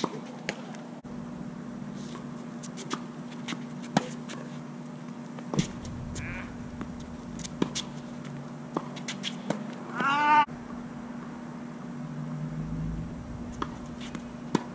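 Tennis balls struck by rackets and bouncing on a hard court during a rally: a string of sharp, irregularly spaced pops. About ten seconds in comes a short, high squeal that bends in pitch.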